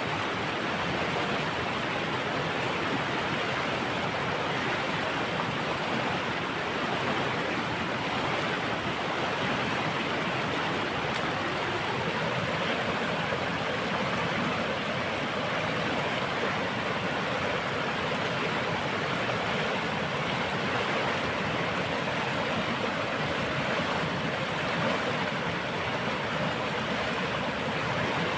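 Running water, a steady unbroken rush.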